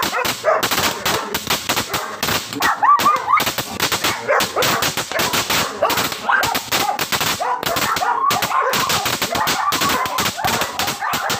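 A crackling firework cake (GLK Crackling Assault) firing: a dense, continuous stream of sharp cracks and pops, many to the second. A dog barks and yelps over it throughout.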